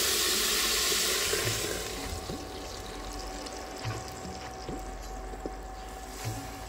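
Blended tomato paste sizzling in hot oil in a metal pot, loud at first and dying down over the first couple of seconds to a quieter sizzle. Near the end, a few light scrapes come from a wooden spoon stirring it.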